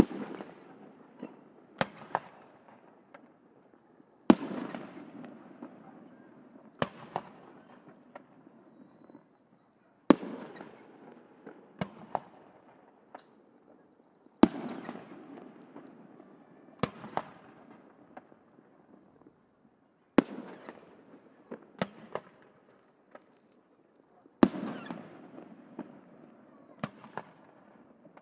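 Aerial firework shells bursting one after another. Each is a loud sharp boom that rolls away in a long echo, followed by a few smaller cracks, about every five seconds.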